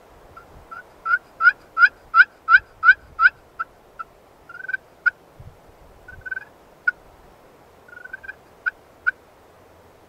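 Slate turkey call in a wooden pot, played with a wooden striker: a run of about seven loud, slightly rising yelps, about three a second, followed by softer, scattered single notes.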